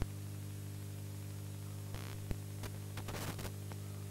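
VHS tape playback static effect: a steady electrical hum under a hiss, with a few sharp clicks and short bursts of crackle about halfway through.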